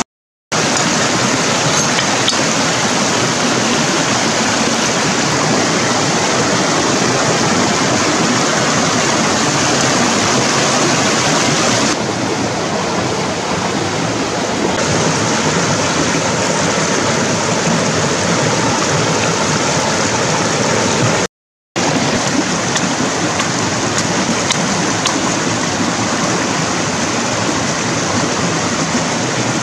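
Fast shallow stream rushing over rocks and boulders, a steady loud rush of water that cuts out briefly twice.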